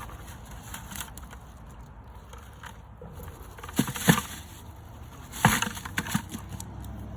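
A few sharp knocks over a low steady background: two close together about four seconds in, then a louder cluster about a second and a half later.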